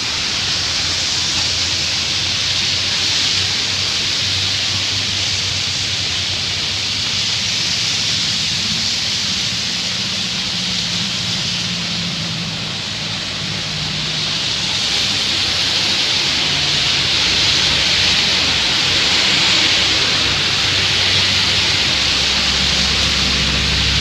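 Heavy rain and traffic on a wet road: a steady hiss of rain and tyres on wet asphalt, with the low hum of bus and truck engines passing, the hum growing louder in the second half.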